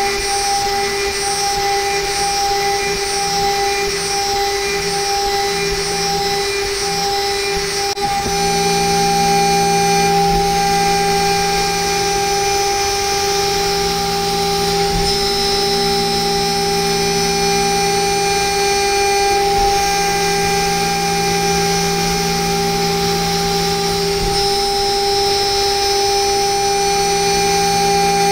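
High-speed CNC spindle turning a 4 mm two-flute ball end mill at 24,000 rpm, taking a light parallel finishing pass in an aluminium block: a steady high-pitched whine. A lower steady hum joins underneath about eight seconds in.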